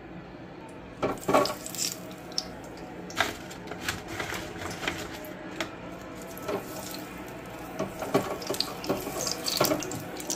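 Frozen cut fries being pulled apart on a sheet pan and dropped into a wire-mesh fryer basket: irregular light clatters and taps, over a steady hiss.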